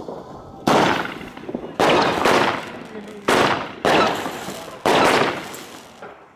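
Weco Tiger & Dragon XXL consumer fireworks fan-cake battery firing its shots, a relabelled Weco Gotcha with 21 shots. The first loud bang comes about half a second in, then about six sharp bangs in all, roughly one or two a second, each trailing off.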